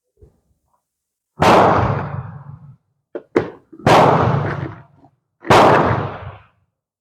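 Rifle shots on a firing line: four loud reports, each ringing off over about a second, spaced roughly one and a half to two seconds apart, with two smaller sharp cracks just after three seconds in.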